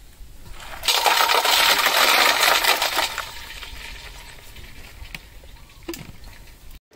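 Ice water poured from a plastic jug into a steel bowl: a loud splash with ice clinking against the metal for about two seconds, then quieter sloshing as the water settles, with a single sharp tick near the end.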